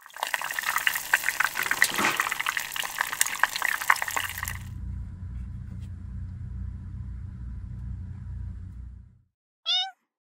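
Tempura deep-frying in a pot of hot oil, dense sizzling with many sharp pops, for the first four and a half seconds. Then a low steady rumble, and about two seconds later one short cat meow.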